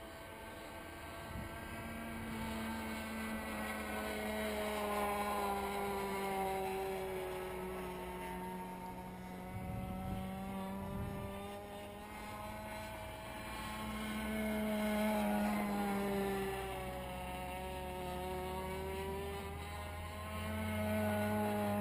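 Model airplane engine, an MDS 10 cc two-stroke converted from nitro to petrol, buzzing on an RC delta wing as it flies circuits. Its pitch sweeps down and back up and its loudness swells and fades with each pass. The owner says it would not reach full revs on this flight. A steady lower hum sits underneath.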